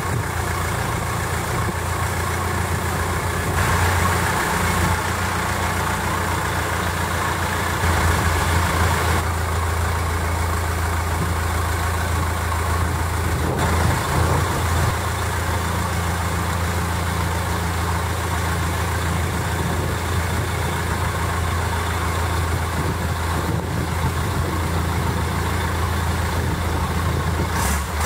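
Long-tail boat engine running at a steady speed, a constant low drone, with wind and water noise around it.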